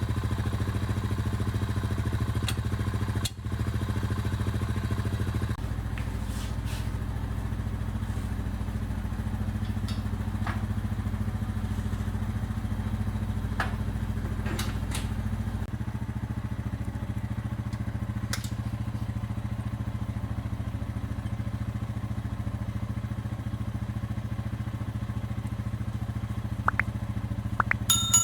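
A motor running with a steady drone, its pitch shifting abruptly a couple of times, with a few light clicks and a short electronic beep near the end.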